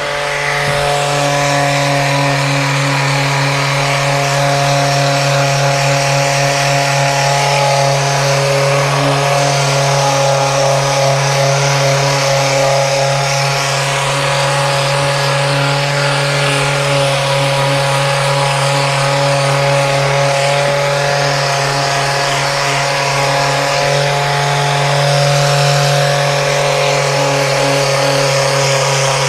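Rapid Release handheld soft-tissue vibration device running continuously: a loud, steady motor buzz that holds one pitch throughout.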